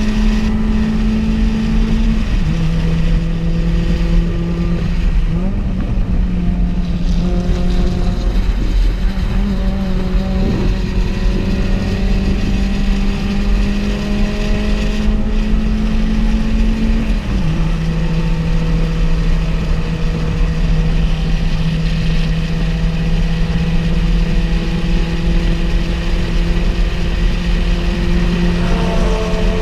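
Onboard sound of a Honda Fit's 1.5-litre four-cylinder engine running hard at steady high revs on track, over heavy wind and road noise. Its pitch steps down about two seconds in, climbs back a few seconds later, and drops again a little past halfway.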